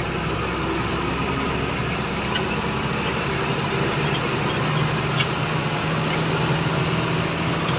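Truck engine running steadily under way, with tyre and road noise, heard from inside the cab; its low engine note grows stronger about halfway through.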